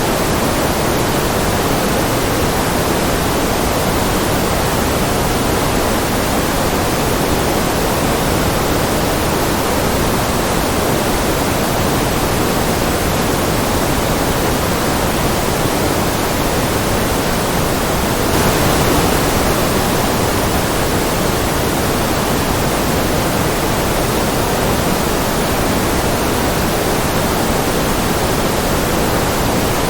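Steady, continuous white-noise hiss, an even wash with most of its weight in the lower and middle range. A little past halfway it briefly grows slightly louder and brighter.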